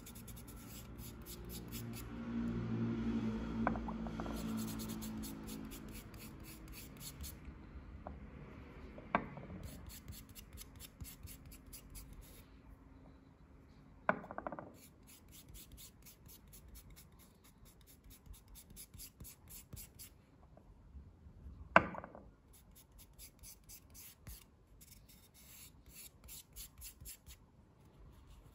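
Oil being rubbed by hand into a sanded block of Taiwan yellow cypress, quick back-and-forth scratchy strokes in runs with short pauses. A few sharp knocks, the loudest about two-thirds of the way through.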